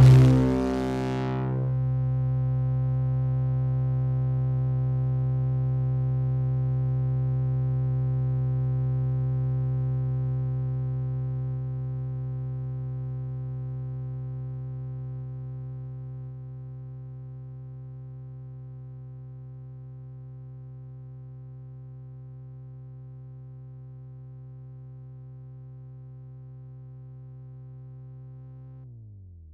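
A low synthesizer drone: one held note with many overtones, left sounding just as a burst of noise cuts off at the start. It holds steady, then slowly fades and dies away near the end.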